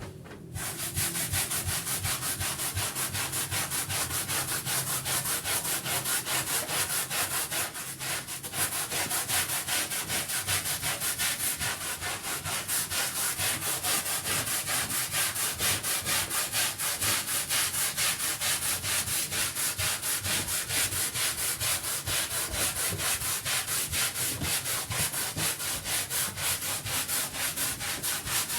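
Rapid rhythmic scrubbing strokes on a rug, about three a second, starting abruptly and pausing briefly about eight seconds in.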